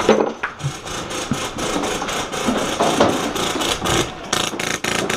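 Rapid, evenly spaced clicking at about eight to ten a second, typical of airsoft guns firing on full auto.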